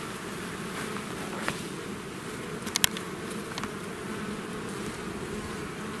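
Honeybees buzzing steadily around a brood frame lifted out of the colony during an inspection. A few sharp clicks break through, the loudest a quick cluster about halfway through.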